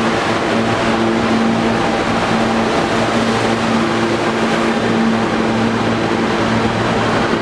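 A Kawasaki R160B subway train running along the platform: a steady loud rumble of wheels on rail, with a low motor hum that keeps cutting in and out.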